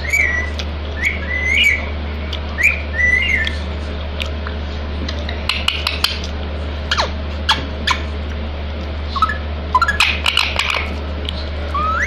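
Rose-ringed parakeet giving short whistled chirps, several in the first few seconds, then a few sharp clicks and another cluster of chirps near the end. A steady low hum runs underneath.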